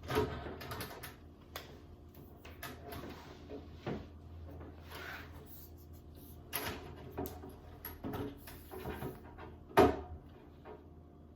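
Electrical cable being handled and fed into a metal junction box: scattered knocks, scrapes and rustling, with one sharp knock near the end.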